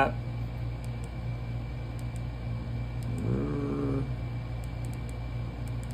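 Faint clicks of a rechargeable LED flashlight's side button being tapped, over a steady low room hum. About three seconds in comes a short hummed "hmm" from a man, rising and then holding in pitch for about a second.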